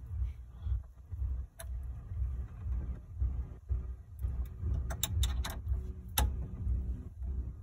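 Small metallic clicks and taps of a bolt and ring terminal being fitted and tightened by hand on a car audio capacitor's terminal, with a cluster of clicks about five to six seconds in. Under them runs a low, uneven rumble.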